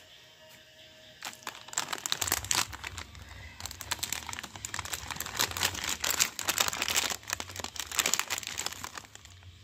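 Plastic bag of strawberry hard candy crinkling as it is handled, in irregular crackles that start about a second in and stop shortly before the end.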